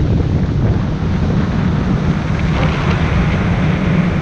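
Small boat running at speed: heavy wind buffeting the microphone over the steady hum of its outboard motor and the rush of water.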